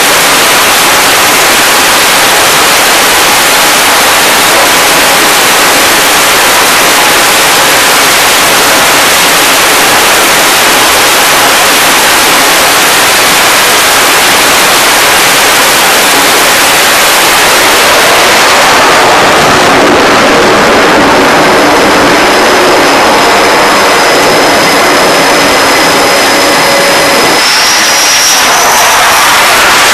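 F/A-18 fighter jet's twin jet engines running at high power on an aircraft carrier catapult: loud, steady jet noise. About two-thirds of the way in, the sound changes as the jet launches, and a short rising whine comes near the end.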